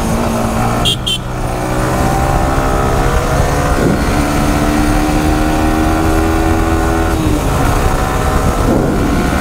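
Yamaha motorcycle engine running steadily at riding speed, heard from the rider's seat with wind rumble on the microphone. Two brief high beeps come about a second in.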